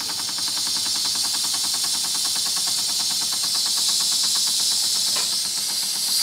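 Wilesco D6 model steam engine running, its single-acting oscillating cylinder beating fast and evenly, under a loud steady hiss of steam escaping from the whistle valve, which is cracked open to bleed off boiler pressure.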